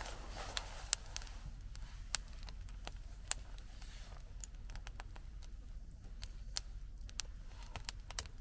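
Scattered light clicks and taps, irregular and a few a second, over a low steady hum.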